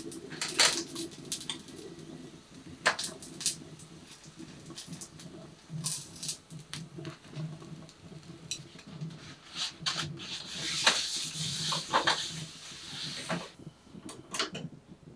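Wooden chopsticks clicking and tapping against a small iron frying pan and a steel wire rack as pan-fried tofu is lifted out, with oil sizzling in the pan. A stretch of louder hissing comes about ten seconds in and stops shortly before the end.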